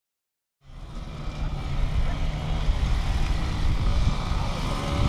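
After a moment of silence, outdoor sound fades in: off-road motorcycle engines running, with wind rumbling on the microphone. Near the end an engine revs, its pitch rising and falling.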